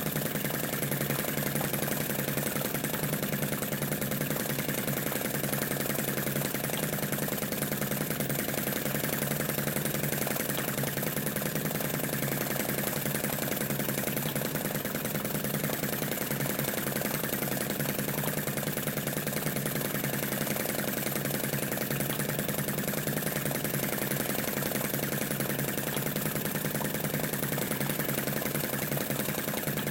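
Small model flame-eater (vacuum) engine built as a Lanz Bulldog tractor, running steadily with a fast, even beat as it belt-drives a model Stuart oil-field pump jack.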